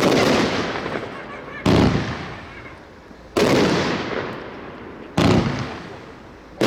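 Blackboxx Erzengel firework battery firing shot after shot: a loud bang about every 1.7 seconds, each trailing off over a second or so, five in all with the last right at the end.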